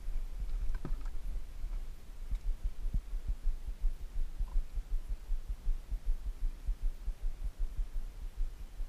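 Wind buffeting the camera microphone: an uneven low rumble of soft thumps that never settles into a rhythm.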